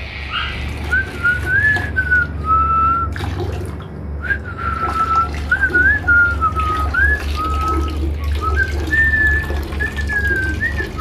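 Someone whistling a tune: one wavering melodic line of held notes joined by short slides, with a pause of about a second around three seconds in. A steady low hum runs underneath.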